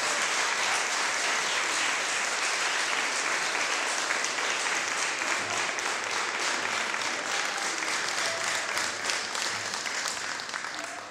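Audience applauding, a dense, even clapping that thins out and fades near the end.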